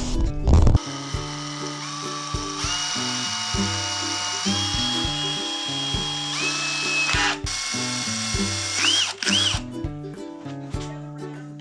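Electric drill running, its motor whine holding steady and then stepping up and down in pitch as the trigger is varied, with two quick rev blips near the end. Background music plays underneath.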